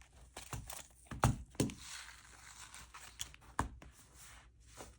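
Paper and plastic sheets crinkling and rustling as they are handled and pushed into a binder, with scattered sharp clicks and a few knocks, the loudest just over a second in.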